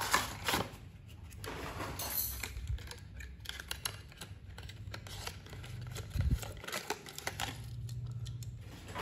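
Cardboard box packaging rustling and clicking as a small die-cast toy road roller is pulled from its box and plastic tray, with its twist tie worked off. There are many short clicks and rustles, thickest about two seconds in.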